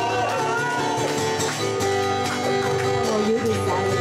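Small live acoustic group playing, with an acoustic guitar strumming under held melody notes.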